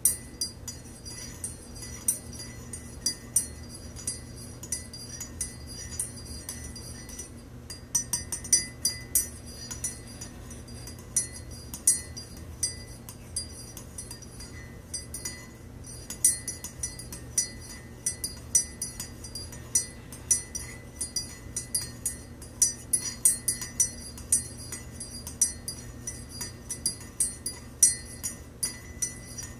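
Metal teaspoon stirring coffee in a ceramic mug, clinking against the inside of the mug in many quick, irregular taps with a short bright ring. A steady low hum runs underneath.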